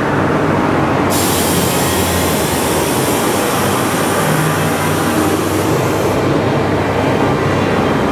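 A loud, steady rumble echoing inside a dark boat ride, with a hiss that starts suddenly about a second in and cuts off about five seconds later.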